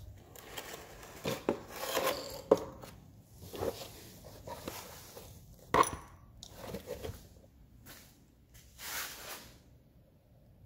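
Irregular clicks, light knocks and rustling, like hands handling and working on small parts, with sharp knocks about two and a half and almost six seconds in.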